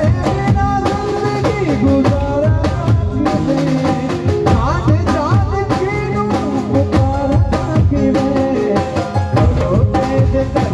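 Live Hindi song played by an amplified band, with dhol drum, drums and keyboard keeping a steady beat under a male singer's voice.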